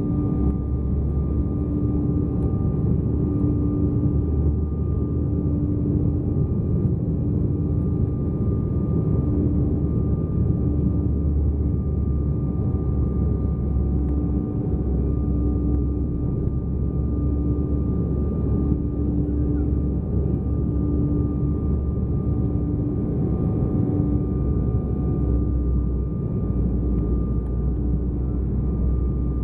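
Cabin noise of an Embraer 190 airliner on approach: a steady rush of airflow and the hum of its twin GE CF34 turbofan engines, with a low drone that swells and fades about every second or so.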